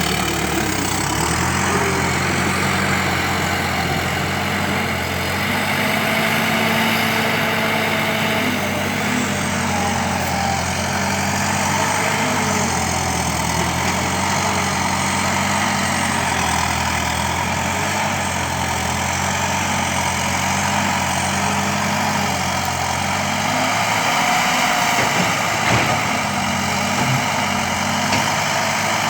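Engine powering an Implanor CF220 forestry loader, running steadily with its pitch shifting slightly up and down now and then.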